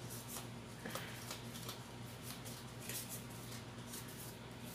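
Pokémon trading cards being flicked through by hand: soft, irregular papery clicks and slides of card against card, over a low steady hum.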